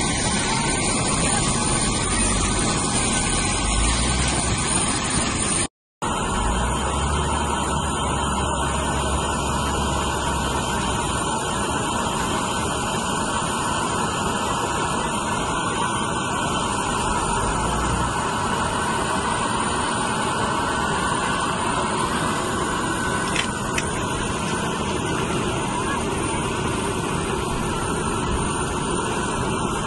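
Steady jet airliner noise on the apron, a constant roar with no pauses. It cuts out for a split second about six seconds in where the footage is edited.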